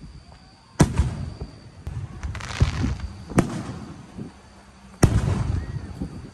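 Fireworks going off: three sharp bangs, about a second in, past the three-second mark and about five seconds in, with crackling and a low rumble trailing after each.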